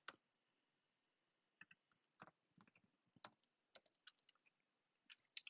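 Typing on a computer keyboard: a couple of keystrokes, a pause of over a second, then an uneven run of separate key clicks.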